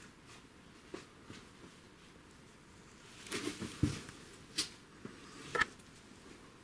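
Scattered scrapes and knocks of a person clambering over cave rock: a handful of short, irregular sounds, with a cluster a little past three seconds in and sharper single knocks near four and a half and five and a half seconds.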